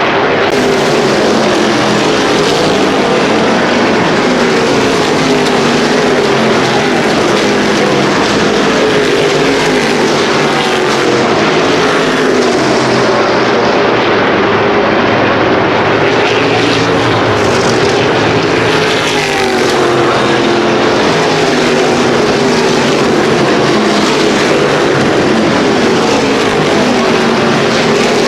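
NASCAR Whelen Modified race cars' V8 engines running at racing speed, a loud continuous engine noise whose pitch keeps wavering up and down.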